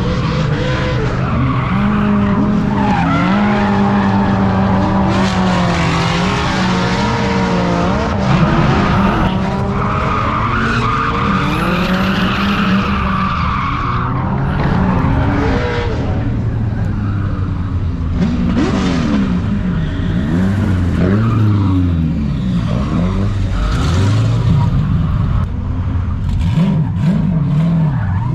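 Drift cars' engines revving up and down again and again through their slides, sometimes more than one at once, with tires squealing and skidding on asphalt.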